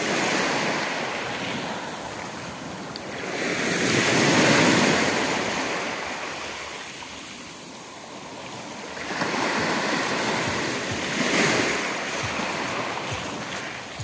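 Small sea waves breaking on a pebble shore and washing back over the stones. The surf swells loud twice, about four seconds in and again around ten seconds in.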